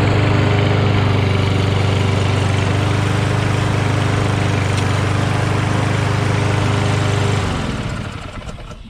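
Kohler XT7 single-cylinder mower engine on a Lawn-Boy Insight self-propelled push mower running steadily, then cut off about seven seconds in and winding down to a stop.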